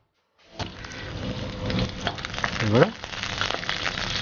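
Green chillies and garlic frying in a little oil in a brass kadai, sizzling, with a wooden spatula scraping and tapping the pan as they are stirred. The sound cuts in after a half-second of silence, and a brief voice sound comes about two-thirds of the way in.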